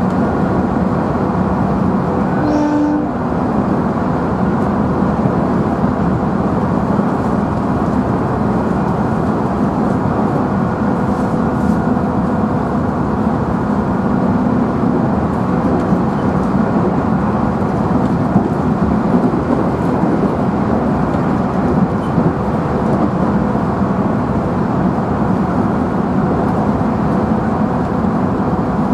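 Inside a JR Central 311 series electric train's motor car running steadily on the line: a continuous rumble of wheels on rail mixed with the steady tones of the traction motors and gearing. A short tone sounds briefly about three seconds in.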